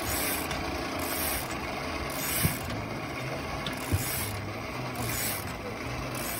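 Smoothie bike running: its spinning wheel drives the blender mounted above it, giving a steady mechanical whirring with a low hum. Two sharp clicks come through, about two and a half and four seconds in.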